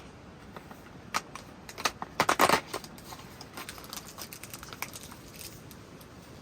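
Irregular light clicks and rattles of small hard objects being handled, loudest in a quick cluster about two seconds in.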